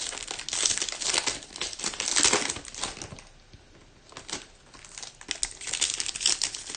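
Crinkling and rustling of trading-card pack wrappers and cards being handled and opened, in bursts with a quieter stretch about three to four seconds in.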